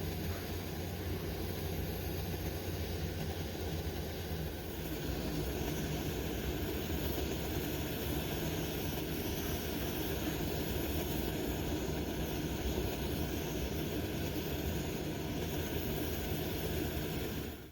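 Coleman 533 Sportsman dual-fuel camp stove burner running with a steady low rushing noise, a little louder from about five seconds in.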